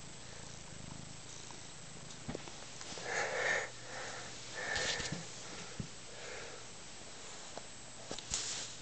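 Domestic cat purring steadily while its neck is rubbed and scratched, with a couple of brief rustles about three and five seconds in.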